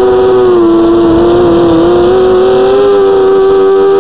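FPV quadcopter's electric motors and propellers whining, loud as heard from the drone's own camera. The pitch sags about half a second in and climbs back a couple of seconds later as the motor speed changes.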